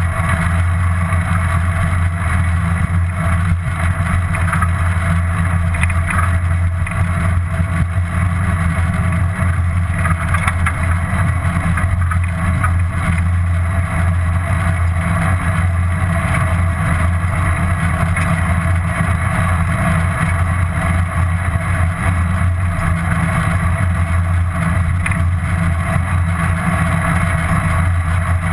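Steady rumble of wind and road noise on a bike-mounted GoPro's microphone while cycling, unbroken throughout.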